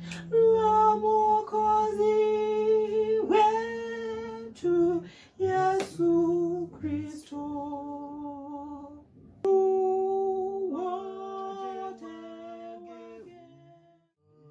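Voices singing a hymn in long held notes, two or more parts sounding together in harmony, fading away near the end.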